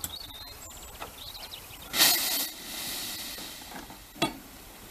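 Narrow-gauge steam locomotive letting out a sudden loud blast of steam at the cylinders about two seconds in, easing into a steady hiss for about a second and a half. A single sharp knock follows near the end.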